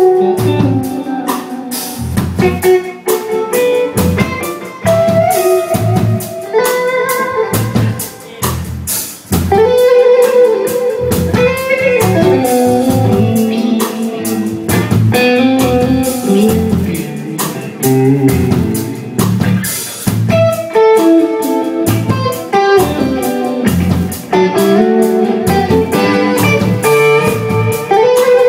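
Live blues-rock band: an electric guitar plays lead lines over bass guitar and a drum kit.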